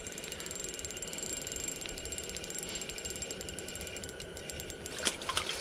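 Small spinning reel being cranked steadily, its gears giving a fast, even ticking, while a hooked crappie is reeled up.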